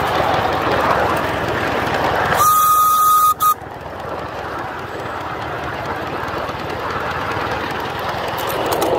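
Small live steam locomotive running along the track with steady running noise, and a single blast of its steam whistle a little over two seconds in: one steady high note over a rush of steam, lasting about a second and cutting off sharply.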